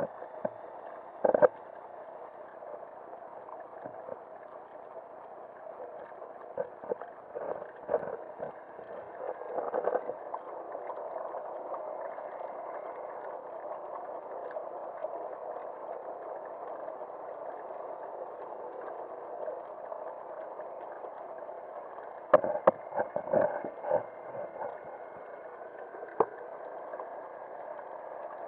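Muffled underwater sound of swimming-pool water heard through a submerged camera: a steady dull hiss, broken by sharp clicks and knocks about a second in and in a quick cluster a little over three-quarters of the way through. A faint thin whine comes in near the end.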